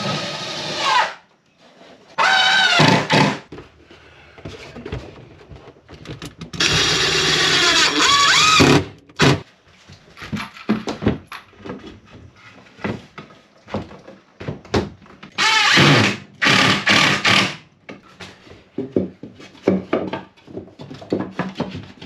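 Power drill running in a series of short bursts, its whine climbing and falling in pitch as the trigger is squeezed and let go, with knocks and clatter of handling between runs.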